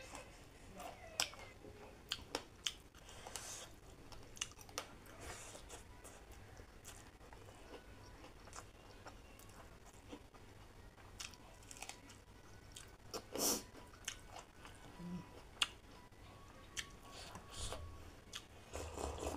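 Close-up mouth sounds of a person eating rice and roast chicken by hand: chewing and biting with scattered wet smacks and clicks, now and then a crunch. Near the end there is a sip from a small bowl of soup.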